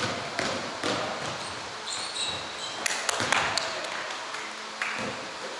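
Indoor pickup basketball on a wooden gym court: scattered ball bounces and footfalls, with a couple of short, high sneaker squeaks about two seconds in, echoing in a large hall.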